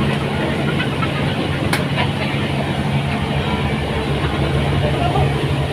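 Engine running steadily at constant speed, a continuous low drone, with a single light click about two seconds in.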